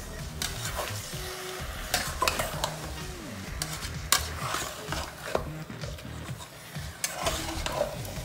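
Marinated chicken sizzling in a hot aluminium pot as a metal spoon stirs it, with irregular clicks and scrapes of the spoon against the pot.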